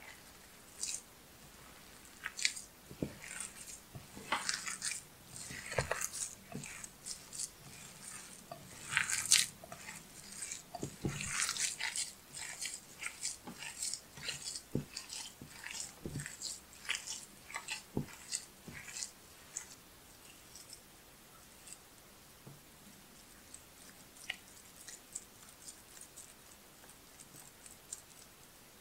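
Hands kneading and squeezing a moist, grainy wheat-and-semolina kibbeh dough: irregular squishing and crunching, busiest in the first two-thirds and thinning to faint, occasional sounds near the end.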